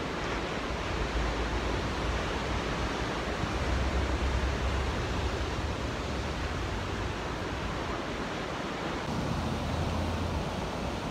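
Steady ocean surf and wind, an even rushing noise with a low rumble underneath.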